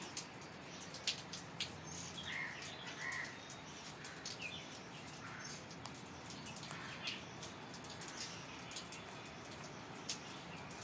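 Parrot giving a few short, soft chirps, spaced a second or more apart, with faint clicks in between.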